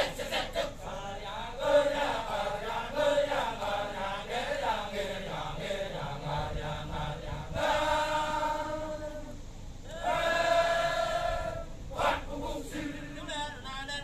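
Kecak chorus of dozens of men chanting: wavering sung phrases, then two long notes held together by the whole group. Near the end the rapid rhythmic "cak-cak" chanting starts again.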